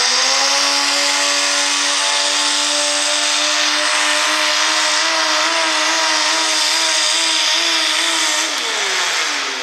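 Naturally aspirated pulling tractor's engine at full throttle under load, dragging the weight sled. It holds a steady high pitch with a slight waver, then the revs fall away over about a second near the end.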